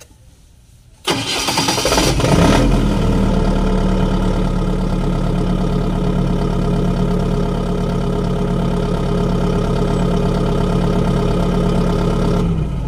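Generator set's engine cranked by its starter about a second in, catching within about a second and settling into a steady run at constant speed, then shut off near the end. This is a test start of a genset with a hard-starting problem.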